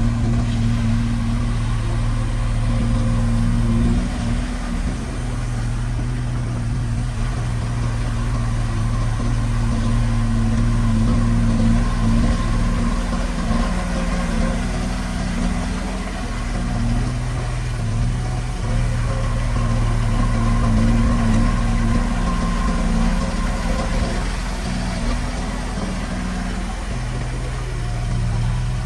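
Heavy-equipment diesel engine running steadily, its note dipping and shifting a few times as the load changes.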